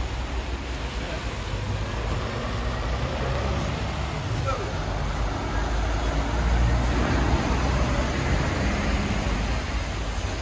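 Rain falling on a city street while cars pass on the wet road: a steady hiss of rain and tyres over a low traffic rumble, swelling a little from about six seconds in.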